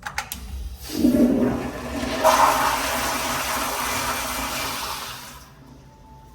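Kohler Kingston toilet flushing: a couple of clicks at the start, then a loud rush of water beginning about a second in, swelling again a little later and cutting off about four and a half seconds after it began.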